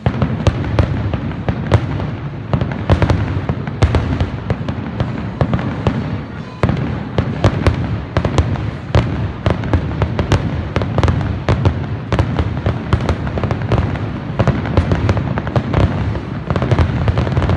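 Fireworks going off in a dense, rapid barrage of sharp cracks and pops over a low rumble, starting and stopping abruptly.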